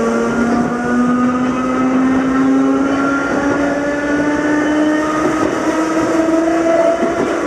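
Nose-suspended (tsurikake) traction motors of an Ohmi Railway 220 series electric railcar whining under power, the pitch rising steadily as the train gathers speed, over the noise of the wheels on the rails.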